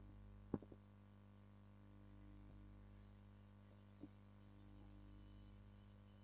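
Near silence: room tone with a faint steady electrical hum, broken by a small sharp click about half a second in, two softer clicks right after it, and one more faint click near four seconds.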